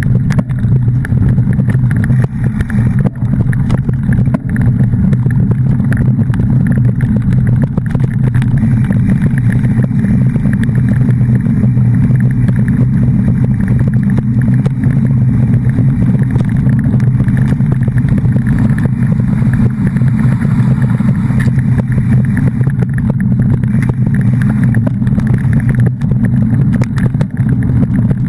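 Steady, loud running noise of a moving vehicle, deep and unbroken, with no change in pitch.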